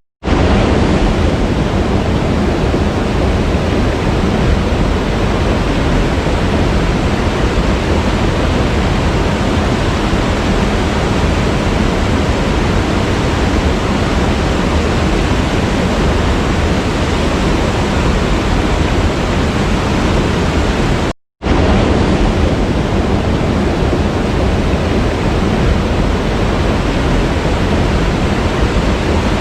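Waterfall rushing in a steady, even roar of falling water. It cuts out to silence for a split second twice, once right at the start and once about two-thirds of the way through.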